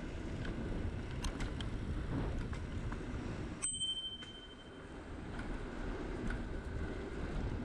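Bicycle ride: a steady rush of wind and road noise with light rattling clicks, and a single ding of a bicycle bell about three and a half seconds in, its high ring fading over half a second. The rush dips briefly right after.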